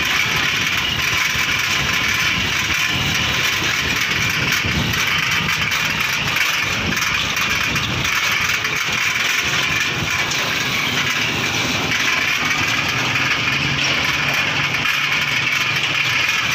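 A motorcycle tricycle's engine running steadily with wind and road noise, heard by a passenger while riding.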